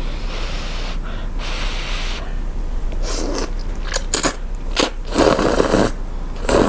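Thin rice noodles in hot soup being slurped and chewed, in a string of noisy sucking bursts, with a couple of sharp clicks in between.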